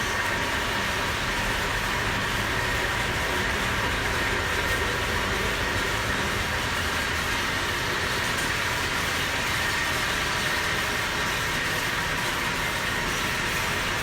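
Motor-driven mechanical forging power hammer running, a steady, even mechanical clatter that holds at one level throughout.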